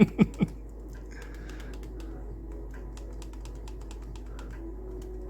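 A man's brief three-beat chuckle, then a run of light clicks as the keys of a 1975 Qualitron 1407 calculator are pressed, the restored calculator being tried out.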